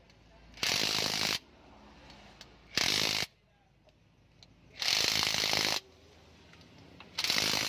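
Impact wrench hammering bolts down on a Hino 500 truck engine's cylinder head during reassembly, in four short bursts of about a second each with pauses between.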